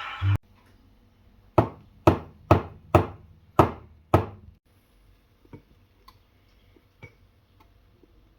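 Six sharp, hard knocks about half a second apart, followed by a few faint clicks, after background music cuts off just after the start.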